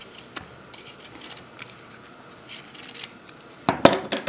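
Pinking shears snipping through fabric in scattered short cuts as a small piece is cut out along its seam, with a couple of louder sharp clacks near the end.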